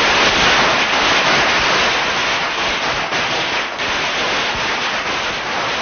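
A long string of Chinese firecrackers going off in a dense, continuous crackle, with a few sharper bangs about three seconds in, set off to mark a money shop's opening day.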